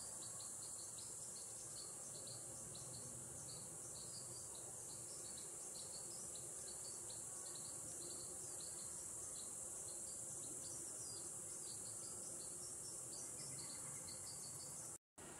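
Steady high-pitched trilling of crickets in summer vegetation, with short chirps repeating over it. The sound cuts out briefly near the end.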